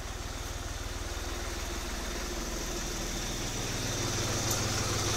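New Holland 3630 tractor's three-cylinder diesel engine running at a steady low speed, growing louder over the last couple of seconds.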